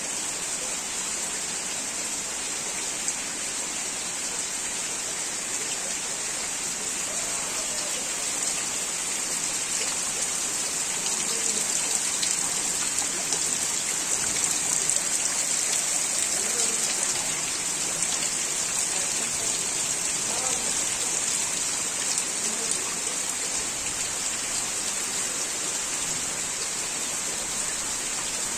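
Torrential rain pouring onto standing floodwater and wet concrete: a dense, steady hiss of rain, a little heavier around the middle.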